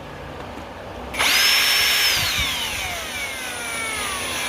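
Small electric motor switched on about a second in, whining up to speed at once, then released and coasting down with a steadily falling whine.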